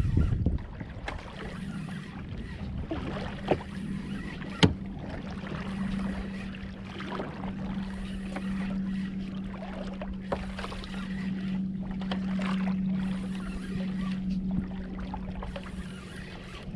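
Kayak on open water during a fish fight: water noise against the hull with scattered sharp clicks and knocks, over a steady low hum that sets in about a second and a half in.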